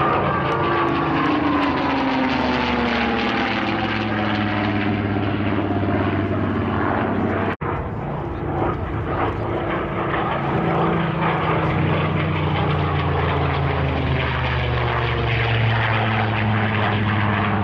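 Fairey Firefly Mk V's Rolls-Royce Griffon V12 engine and propeller droning as the aircraft flies past. The pitch falls over the first few seconds as it passes. The sound cuts out for an instant about seven and a half seconds in, then the engine drone carries on steadily.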